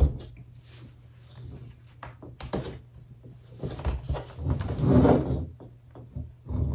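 Hard plastic snap-on laptop case being pressed and handled against a table: a sharp knock at the start, a few clicks, and a louder stretch of plastic rubbing and scraping a little past the middle, as the case's clips fail to snap into place.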